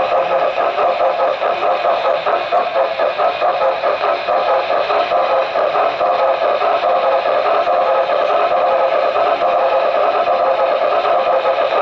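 Steady mechanical hum and rattle of a model steam locomotive and its tender running along the track, picked up through the camera riding on the tender.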